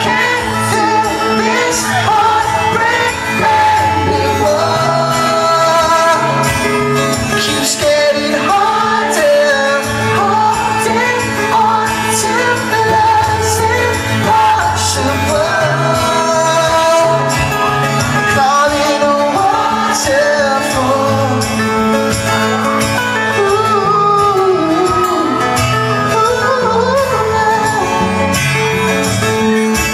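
Live pop-rock band playing a song, with a lead singer over guitar, bass and drums, heard from the audience at a concert.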